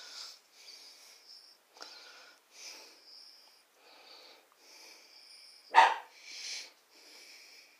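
Short, soft breaths and sniffs through the nose, roughly one a second, with one louder sharp exhale just before six seconds in.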